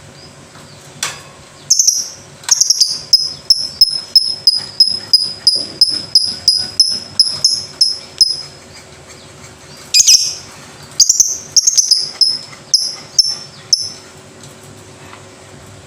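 Lovebird calling in a fast run of shrill, high chirps, about three a second. After a short pause it gives a second, shorter run.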